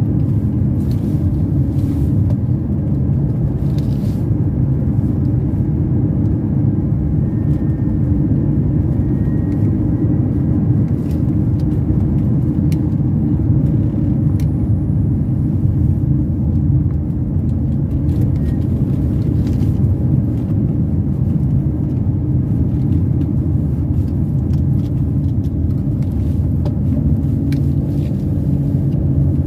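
Car driving steadily, its engine and tyre noise a low, even rumble heard from inside the cabin, with a few faint ticks here and there.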